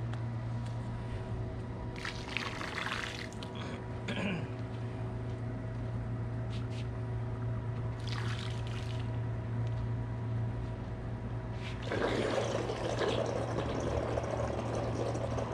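Liquid phosphate remover poured from a bottle into a swimming pool, splashing and trickling into the water in several spells, the longest near the end. A steady low hum runs underneath.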